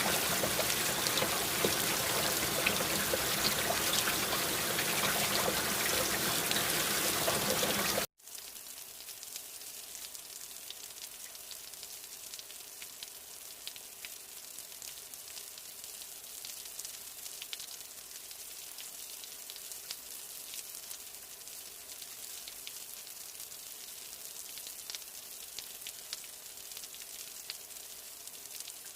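Heavy rain, a dense steady hiss of drops, cuts off abruptly about 8 seconds in and is replaced by lighter, quieter rain with a thin hiss and scattered individual drop ticks.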